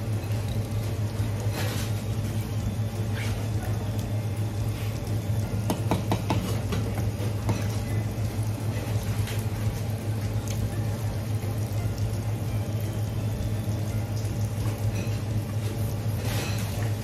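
Steady low machine hum under a wash of running water, with a few faint knocks and clicks from handling.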